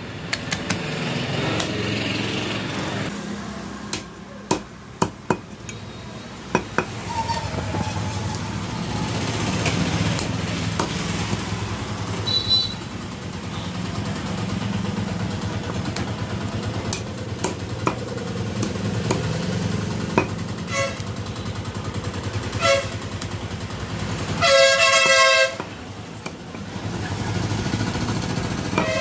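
A butcher's knife knocking on a wooden chopping block in scattered short strikes while duck is cut up, over steady street-traffic noise. A vehicle horn sounds loudly for about a second near the end.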